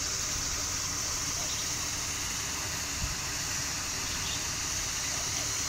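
Steady outdoor background noise: an even rushing hiss with a constant high-pitched drone over it, and no distinct events.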